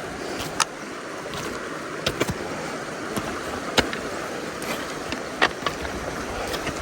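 Steady rush of a small mountain stream, with a few sharp clicks or splashes standing out, one about half a second in, a pair near two seconds, and one near four seconds.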